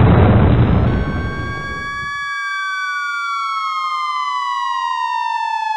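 Siren sound effect: a pitched wail enters about a second in, holds its pitch, then winds down in a slow falling glide until it cuts off near the end. Under its start, a loud deep noise fades away over the first two seconds.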